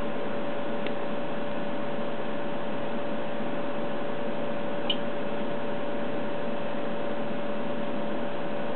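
Steady electrical hum and hiss from a running HP 53310A modulation domain analyzer, with a steady tone in it. It is broken by two short key clicks, a faint one about a second in and a sharper one near the middle, as front-panel buttons are pressed to leave the self-test menu.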